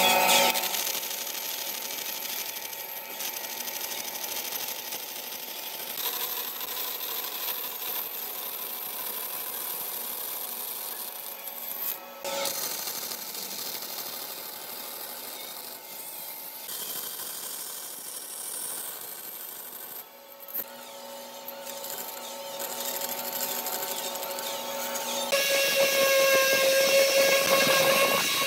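Power tools working wood, in a run of short edited clips that change abruptly every few seconds, with a steady motor hum under the noise in parts.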